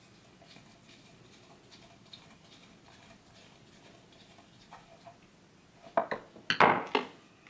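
Small hard parts being handled on a workbench: faint scattered ticks, then a quick run of loud clicks and a clatter about six seconds in.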